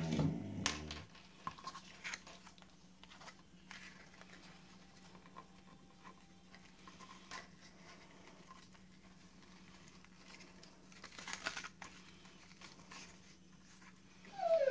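Faint rustling and crinkling of a sheer ribbon and a paper tag handled by hand as the ribbon is threaded through the tag and tied, with a brief louder flurry of rustling near the end, over a steady low hum. At the very end a short whine falls in pitch.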